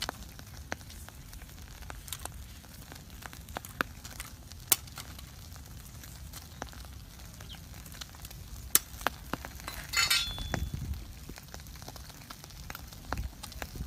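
Wood fire crackling, with scattered sharp cracks and pops over a low steady rumble, and a brief louder rustle about ten seconds in.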